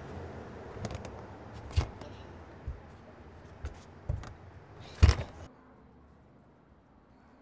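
A wheelchair pulled backward down outdoor steps, its wheels thumping down one step at a time: about five knocks, the loudest near the end.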